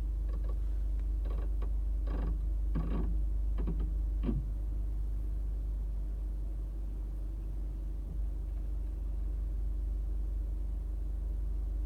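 2018 Toyota RAV4 XLE making its odd noise in reverse as the brake pedal is slowly released: about half a dozen short creaking clicks over the first four seconds or so, over the steady hum of the engine idling. After that only the idle hum remains. The dealer could not reproduce the noise and suggested it might be moisture.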